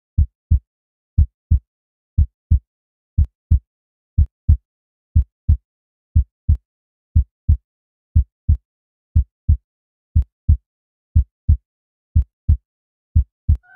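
Heartbeat sound effect: paired low thumps in a lub-dub rhythm, about one beat a second, with silence between beats.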